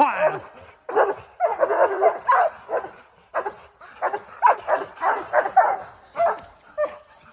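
Airedale terriers barking at a black bear they have treed: rapid, repeated barks in quick runs with brief pauses.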